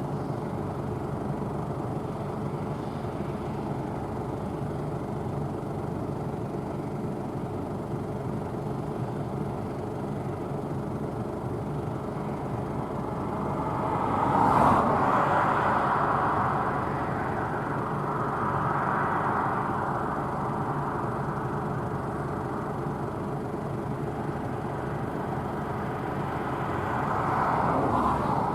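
Claas Tucano 570 combine harvester running steadily while harvesting barley, a constant machine drone. It swells louder about halfway through and again near the end.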